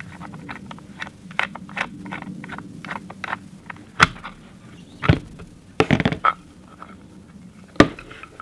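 Screwdriver backing a screw out of an air rifle's wooden stock, giving a run of small quick clicks, then several sharp clacks as the wooden stock is worked off the metal receiver.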